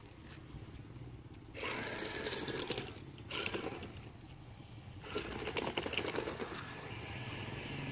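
Small electric gear motors of a homemade RC car whirring as it is driven over rough stone, running in three spurts with short pauses between.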